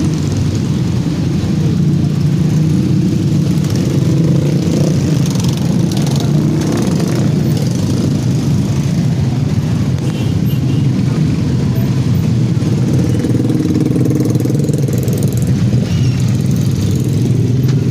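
Engines of a dense crowd of motorcycles and scooters running and idling in slow, packed traffic, a steady drone.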